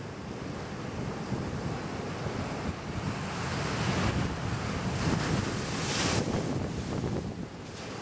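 Ocean surf breaking and washing over granite boulders, the surge building to its loudest crash about six seconds in, with wind noise on the microphone.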